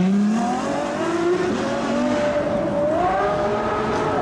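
Ferrari LaFerrari's V12 engine revving as the car accelerates away, its pitch climbing in the first second, then rising and falling with further revs.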